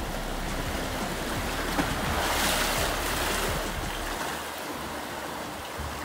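Sea waves washing onto the shore, one wave swelling and breaking about two seconds in.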